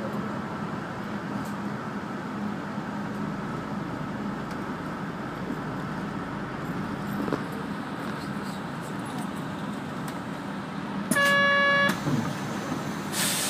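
Steady engine and road noise of a moving city route bus, with a low hum. About eleven seconds in, a vehicle horn sounds once for under a second, the loudest sound, and a short hiss follows near the end.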